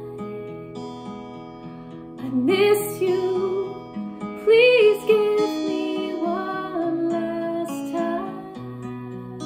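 A woman singing a sad song with long, wavering held notes over strummed acoustic guitar.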